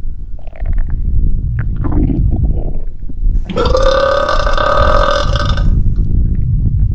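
A person's stomach gurgling and rumbling, with one long, drawn-out burp about halfway through that lasts some two seconds.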